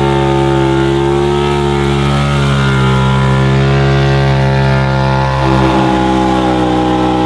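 Side-by-side UTV engine running at a steady speed while towing a crated snowmobile through snow, its pitch shifting slightly about five seconds in.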